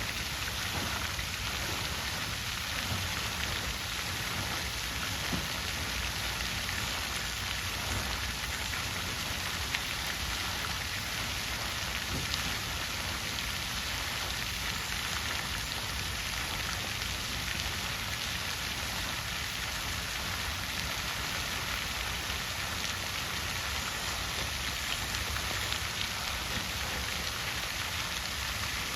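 Water fountain splashing steadily, falling water spattering into its basin in an even, unbroken rush with small splashes.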